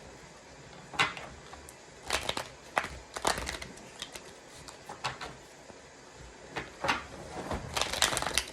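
A deck of tarot cards being shuffled and handled, giving a string of sharp snaps and taps at irregular intervals.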